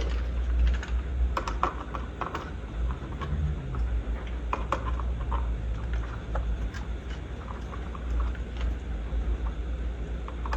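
Scattered small clicks and taps of a light-switch faceplate being fitted over the switch and its screws being driven in, over a steady low hum.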